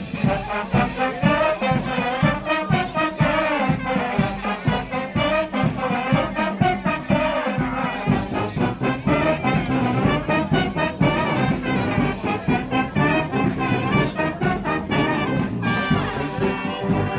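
A street brass band playing live, with trumpets and trombones carrying the melody over a steady drum beat.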